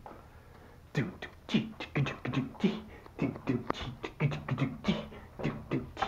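A man beatboxing: quick rhythmic mouth percussion mixed with short low hummed notes, starting about a second in.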